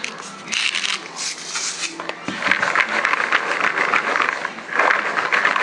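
A hand salt grinder twisted in a few short scratchy grinding strokes, putting sea salt onto popcorn. From about two seconds in, air-popped popcorn is tossed in a plastic bowl, a dense rustling crackle of many light pieces.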